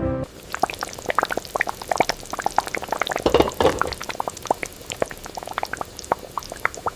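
Food in a large cooking vessel boiling, with a thick liquid bubbling and popping irregularly several times a second.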